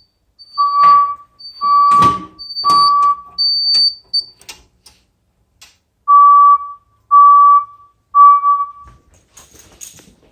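Fire alarm voice-evacuation speaker (System Sensor SP101W24LO speaker-strobe) sounding a steady beep tone in the temporal-3 evacuation pattern: three half-second beeps, a pause of about three seconds, then three more. Behind the first three beeps are a fainter high-pitched tone and a few sharp clicks.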